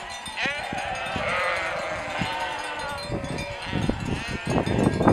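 A large flock of range sheep, ewes and lambs, bleating in many overlapping calls. A run of low thumps builds through the second half and is loudest near the end.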